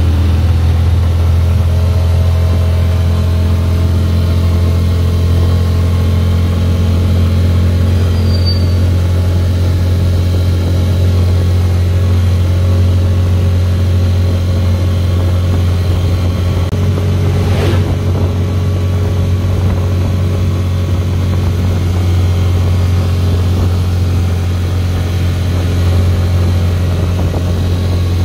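Small motorcycle engine of a tricycle (motorcycle with sidecar) running steadily, heard from on board, with one brief knock about eighteen seconds in.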